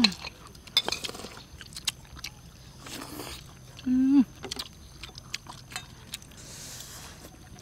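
People eating: spoons clicking and scraping against plates amid chewing, with a short hummed "mmm" about four seconds in.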